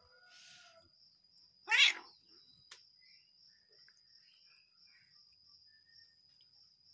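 Domestic cat giving one short, loud, sharp angry cry about two seconds in, over a steady high buzz of insects.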